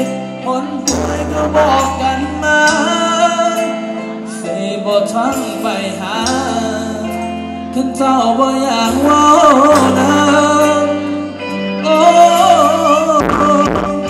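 Live band music with a singer, played for Thai ramwong dancing: a wavering sung melody over steady held bass notes.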